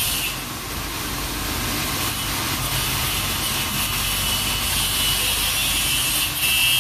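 Steady mechanical rumble with a hiss running underneath.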